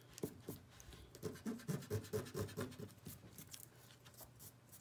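Pencil eraser rubbed quickly back and forth on drawing paper, rubbing out pencil guidelines: a run of about four or five strokes a second lasting a second and a half, after a few light taps.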